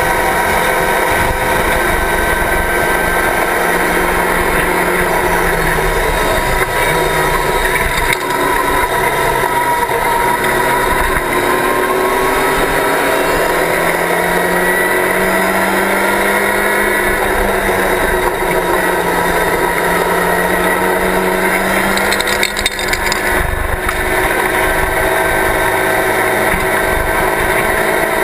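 Locost race car's engine at race pace, heard from the car's open cockpit. The engine note climbs and falls repeatedly through gear changes and corners, with a brief dip about three-quarters of the way through.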